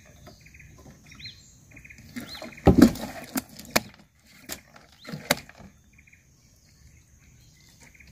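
A few sharp knocks and thumps, the loudest about three seconds in, over short chirps repeating about twice a second in the background.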